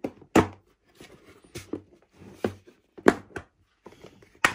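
Cracked hard plastic shell of a toy surprise egg being prised apart by hand: a few sharp, irregular cracks and knocks as the broken pieces snap and bump against each other.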